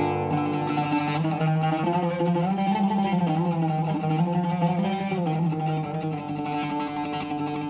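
Oud with a cedar soundboard and maple-and-wenge back, played solo: a strong plucked stroke right at the start, then a quick running melody of plucked notes.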